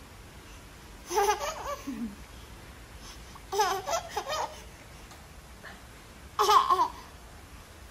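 Baby laughing in three short bouts a couple of seconds apart.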